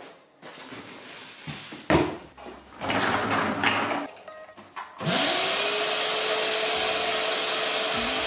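A few knocks and clatters, then about five seconds in a stainless wet/dry shop vacuum is switched on: its motor whines quickly up to speed and then runs steadily with a loud, even hiss.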